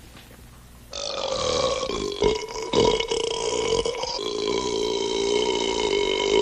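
A man's long, drawn-out burp that starts about a second in and is held at a steady pitch for more than five seconds, with a few brief catches along the way.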